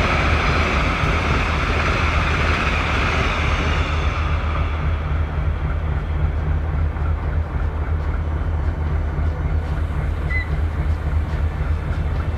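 Diesel locomotive idling with a steady low hum. Over the first few seconds the rumble of a train pulling out on another track fades away.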